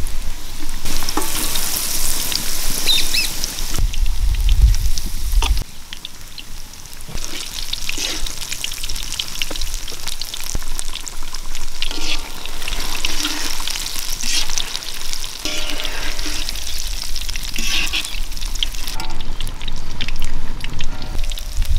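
Egg bondas deep-frying in a pan of hot oil: a steady sizzle full of small crackles and pops. A low rumble comes and goes during the first six seconds.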